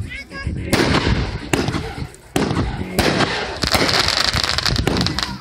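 Firehawk 'Power Up' 500-gram firework cake firing: four sharp bangs less than a second apart, then a stretch of dense, hissing crackle from crackling stars near the end.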